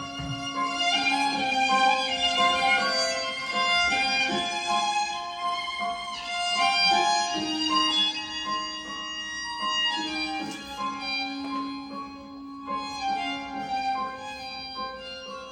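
Background instrumental music: a slow violin melody over long held lower notes.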